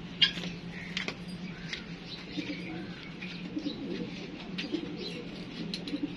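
Domestic pigeons cooing in repeated low soft calls, with a few faint higher chirps and one sharp tap shortly after the start.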